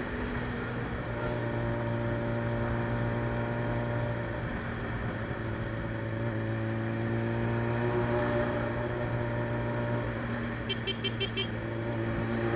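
Suzuki Bandit 600's carbureted inline-four with a straight-through exhaust, running steadily with its pitch drifting slightly up and down. Near the end comes a quick run of about six short high beeps.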